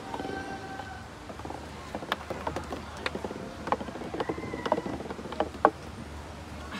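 Golf ball rolling down a ramp studded with metal pegs, clinking off the pegs in an irregular string of sharp metallic strikes, some ringing briefly. The loudest strike comes near the end.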